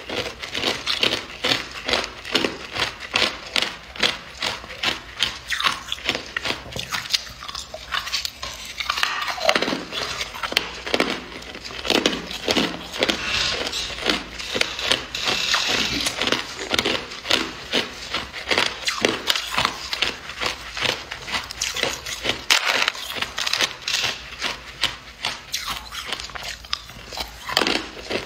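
Hard clear ice being bitten and chewed, a steady run of crisp crunches and cracks, several a second.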